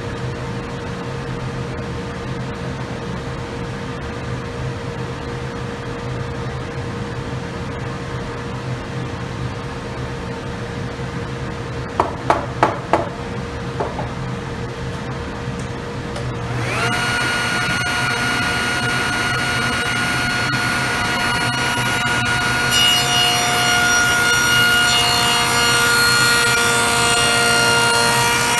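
Table saw switched on about 17 seconds in, its motor spinning up with a brief rising whine and then running at a steady pitch; from about 23 seconds the blade cuts into a black walnut leg held upright in a jig, adding a louder high hiss. Before that there is a steady background hum and a few sharp knocks around 12 to 14 seconds.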